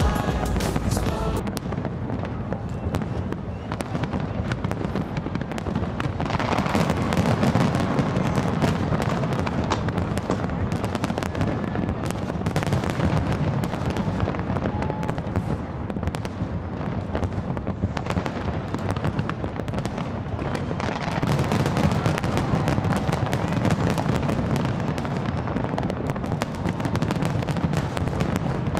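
A large aerial fireworks display going off continuously, a dense run of bangs and crackling shell bursts with no break.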